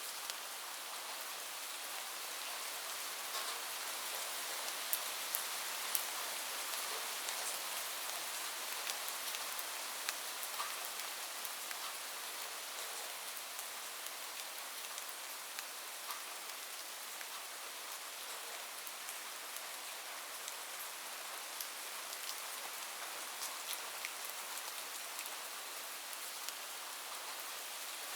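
Steady heavy rain falling on a roof: an even hiss with scattered sharp drop ticks.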